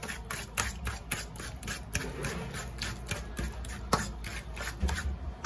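Overripe plantain being mashed by hand in a stainless steel bowl: a quick, uneven run of soft squishes and taps, about three or four a second, with a sharper knock right at the end.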